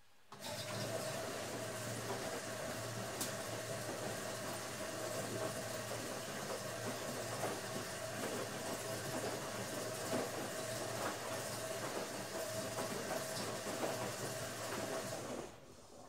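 Automatic washing machine running loaded, a steady motor hum and whine over a churning noise. It starts abruptly just after the start and cuts off shortly before the end.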